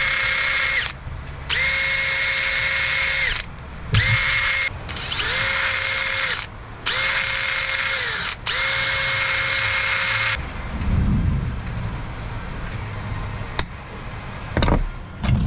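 Small handheld electric power tool working a wooden swimbait body to cut its first joint. It runs in six short bursts over about ten seconds, each with a steady high whine that spins up and winds down. Then comes quieter handling with a few sharp clicks near the end.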